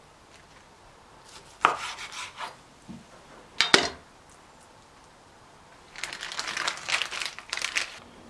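Raw pork tenderloin and its plastic packaging handled on a plastic cutting board over a wooden board. There are two sharp knocks on the board, near two seconds and near four seconds in, and about two seconds of plastic rustling and crinkling near the end.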